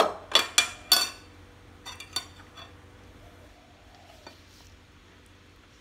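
Metal spoon clinking and scraping against a ceramic bowl while mixing chopped raw meat: four sharp clinks in the first second or so, two more about two seconds in, then only faint taps.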